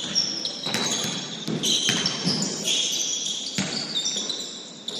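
Basketball game sounds: sneakers squeaking on a gym floor in many short, high, overlapping squeaks, with a few sharp thuds of the ball bouncing.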